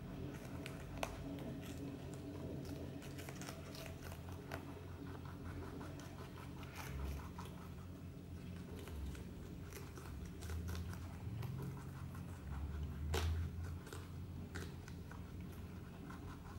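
Rabbits biting and chewing a fresh red chili pepper: a scatter of small, crisp crunches and teeth clicks at an uneven pace, one louder crunch late on, over a steady low hum.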